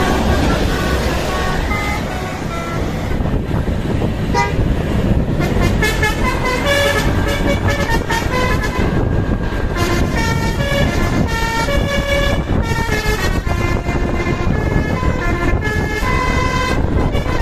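Basuri 'telolet' musical bus horn playing a melody of short notes that step up and down in pitch, over the steady rumble of the bus engine.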